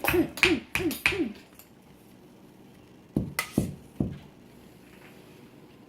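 A person's voice in quick rhythmic hoots, about three a second, stopping just over a second in. A couple of seconds later come three sharp knocks within about a second: a hammer striking the dig kit's block.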